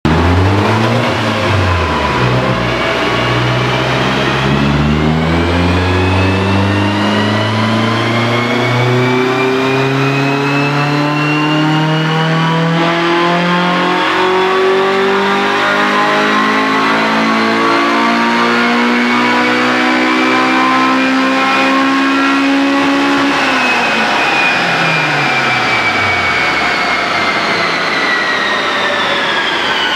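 Honda Civic's swapped B18C-R 1.8-litre DOHC VTEC four-cylinder making a full-throttle dyno pull, exhausting through a Spoon N1 axle-back and a test pipe. The engine note climbs steadily in pitch for about twenty seconds, then winds down over the last several seconds as the run ends.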